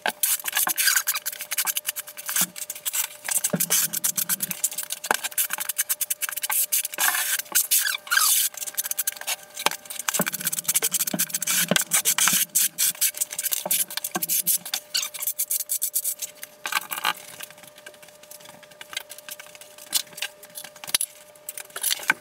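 Steel notched trowel scraping and combing thinset mortar across a concrete floor: continuous gritty scraping with many small clicks, easing off for a few seconds near the end.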